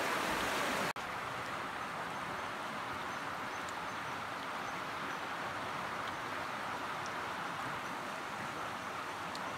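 Steady rush of water from a small stream's rapids. It breaks off abruptly about a second in and resumes a little quieter, still a steady rushing.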